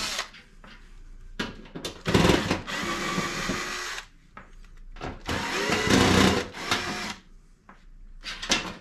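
Cordless drill/driver whirring in two runs of about two seconds each, with a few short clicks between, as it backs out the screws holding a range hood panel.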